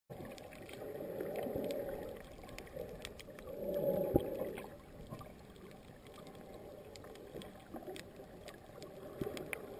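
Muffled water sound heard by a camera held underwater, swelling twice and then settling, with scattered small clicks throughout.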